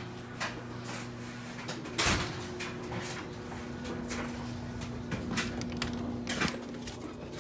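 An exterior door being opened and gone through, with one loud clunk about two seconds in and scattered clicks and knocks after it, over a low steady hum.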